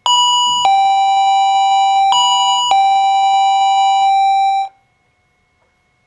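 Front door bell chiming a two-note ding-dong, a higher note then a lower one, twice over, then cutting off abruptly.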